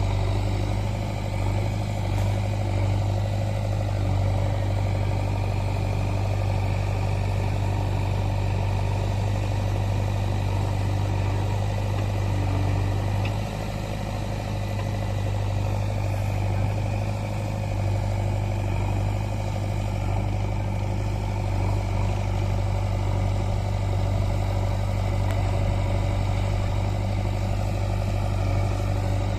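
Heavy diesel machinery engine running steadily at a constant speed, with a strong low hum that barely changes, dipping slightly about halfway through.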